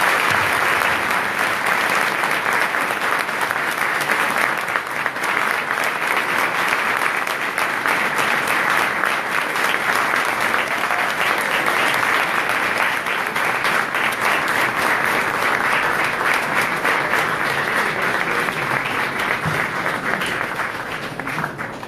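Sustained applause from a hall full of soldiers, many hands clapping at once; it starts to fade near the end.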